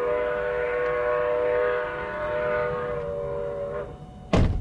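Nathan six-chime steam whistle on locomotive FEC 148 blowing one long blast, several tones sounding together in a steady chord, which ends a little before the close. A sharp thump follows near the end.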